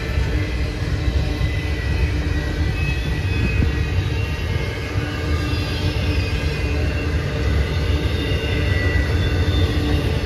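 Double-stack container train's loaded well cars rolling past: a steady rumble of steel wheels on the rails.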